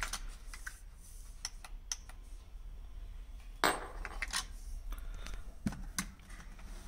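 Faint scattered clicks and light taps, with one louder brief rustling scrape a little over three and a half seconds in: small things being handled.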